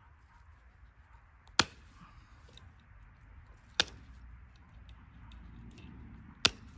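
Strands of woven 4x4 fence wire being snipped with hand wire cutters: three sharp snaps, two to three seconds apart, as the wire is cut off the roll.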